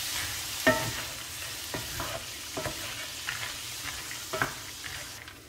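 Peanuts frying in oil in a cast-iron skillet, sizzling with a steady hiss, while a wooden spoon stirs them with several sharp clacks and scrapes against the nuts and pan. The sizzle fades near the end.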